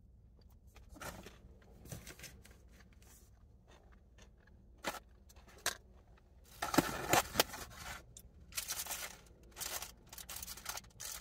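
Takeout food packaging being handled: a plastic salad cup and a foam clamshell box clicking, scraping and rustling, with a dense stretch of scratchy rustling a little past the middle as the foam box is fetched and opened.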